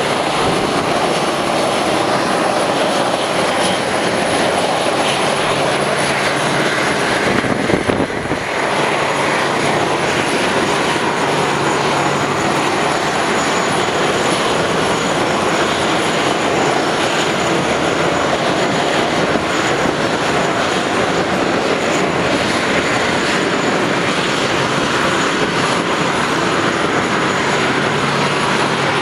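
Boeing 737-300's CFM56 turbofan engines at taxi power: a steady loud rush with a high, thin whine over a low hum. A brief bump breaks it about eight seconds in.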